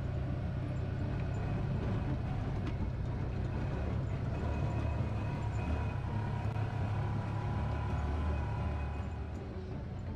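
Side-by-side ATV engine running steadily as it drives along a rough gravel track, heard from inside the cab; it eases off a little near the end.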